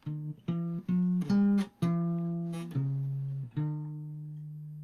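A musical example of a straight rhythm: about seven single plucked notes in a short phrase, each starting sharply and fading, with the last note ringing on.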